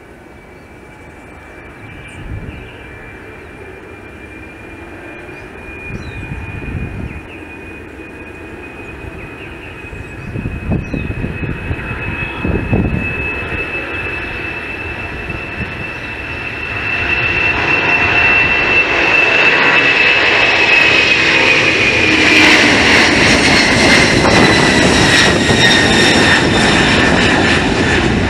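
Boeing 767-300ER freighter's two General Electric CF6 turbofans at takeoff thrust, growing steadily louder through the takeoff roll, lift-off and climb-out. A high fan whine rises slightly in pitch and then drops as the jet passes overhead, with the roar at its loudest near the end.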